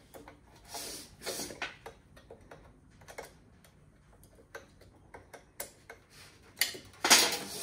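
Irregular small metal clicks and taps as a fitting on a metal camera bracket is loosened by hand and the parts are handled, with a louder scrape just before the end.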